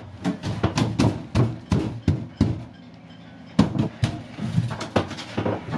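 Wooden berth boards knocking and clunking as they are handled and a plywood V-berth panel is lifted off the water-tank compartment: two runs of sharp knocks at an uneven pace with a short pause in the middle.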